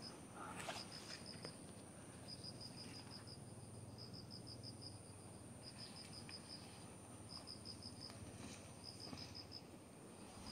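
Insects chirping faintly in short trains of quick, high-pitched pulses that repeat every second or so, over a thin, steady high whine.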